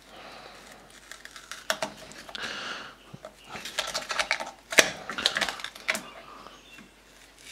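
Scratchy scraping with irregular small clicks and taps as a filter pad and caked desiccant are pried out of the plastic air-dryer housing of a Hitachi air suspension compressor; one sharper click about five seconds in.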